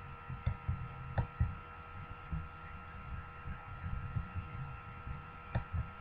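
Steady electrical hum with a few high whining tones over an uneven low rumble, broken by a few faint clicks.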